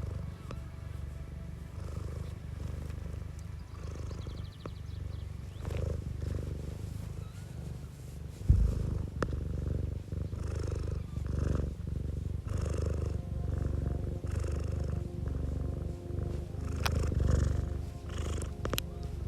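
Domestic cat purring close to the microphone, a low rumble that swells and fades about once a second. One sharp knock just before halfway.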